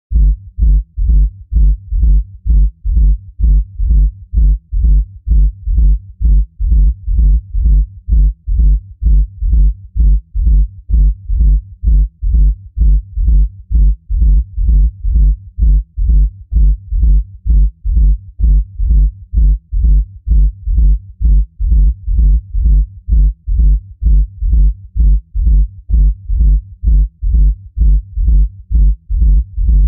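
Electronic dance music heard muffled from outside a nightclub: a heavy bass kick thumping about twice a second, with the higher sounds cut away by the walls.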